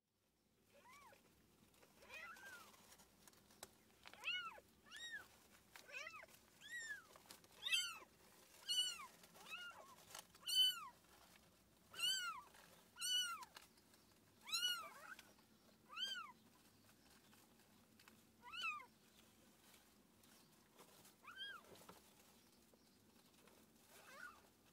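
Newborn kitten mewing: short high-pitched cries, each rising then falling in pitch, about one a second, growing sparser near the end.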